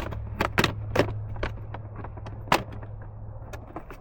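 Hard plastic ATV body panel being handled and fitted, giving a string of sharp plastic clicks and knocks, most of them in the first few seconds, over a steady low hum.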